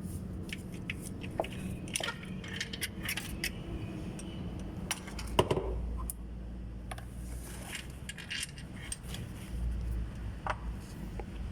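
Metal hand tools clinking and tapping irregularly against bolts and the gearbox housing while starter and bellhousing bolts are being undone, with one louder knock about halfway through, over a steady low hum.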